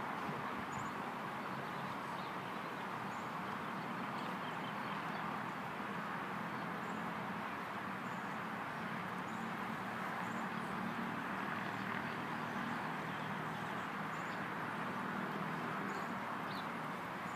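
Steady outdoor background noise with a faint low hum and scattered faint bird chirps.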